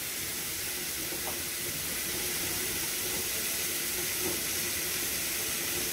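Sliced turkey smoked sausage, onions and bell peppers frying in an oiled skillet, a steady sizzling hiss.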